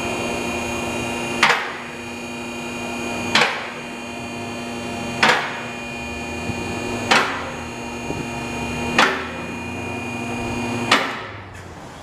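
Forward two-post vehicle lift going up: its electric hydraulic pump motor runs with a steady hum and whine, and a sharp metallic clack comes about every two seconds, six times, as the safety latches drop into the notches of the columns. The motor stops near the end.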